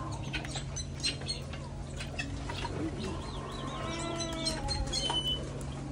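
Farmyard poultry, guinea fowl among them, calling in short clicks and chirps, with a longer pitched call about four seconds in. A steady low hum runs underneath.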